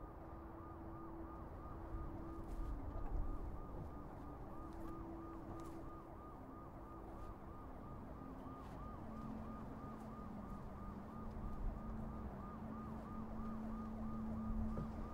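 Emergency-vehicle siren in a fast warble, its pitch wobbling about four times a second without a break. Low steady tones sound underneath it and change pitch a few times.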